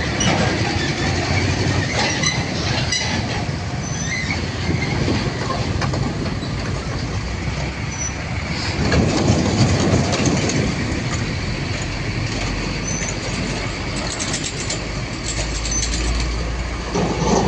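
Train rolling past on the rails, a steady rumble of wheels with short high wheel squeals here and there.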